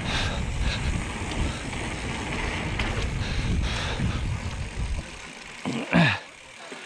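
Wind rushing over the camera microphone and tyres rolling on a packed dirt trail as a mountain bike descends at speed, the noise dropping away about five seconds in as the bike slows. Near the end, a brief, loud sound falls in pitch.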